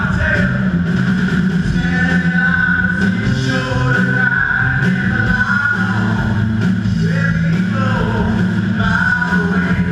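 Live rock band playing loud: electric guitars and a drum kit, with singing.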